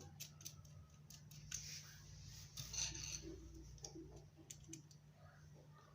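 Small clicks and short scraping rubs of a fan regulator and its screws being handled and fitted into a stand fan's switch housing, over a faint steady low hum.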